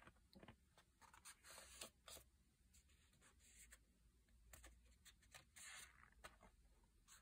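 Faint rustling of a colouring book's paper pages being turned and handled, with a few brief rustles and light clicks.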